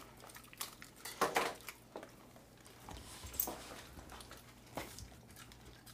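A few faint scattered clicks and light knocks over quiet room noise.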